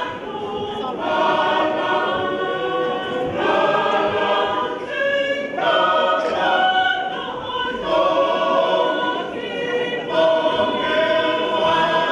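A Tongan church choir singing a hymn unaccompanied, many voices in harmony, with held chords that move to new notes every second or so.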